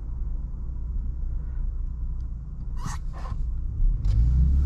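Cabin rumble of a 2020 Ford Raptor's 3.5-litre twin-turbo EcoBoost V6, heard from inside the truck in traffic. It grows louder about four seconds in as the truck pulls away.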